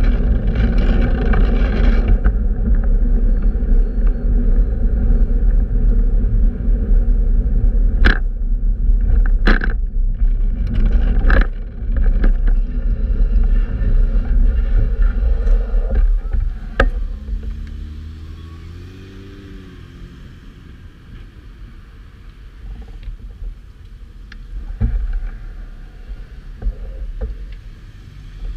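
Rumble of wind and road noise on the microphone during a fixed-gear bicycle ride through city traffic, with a few sharp clicks or knocks. After about 17 seconds it drops much quieter, and a brief tone rises and falls in pitch.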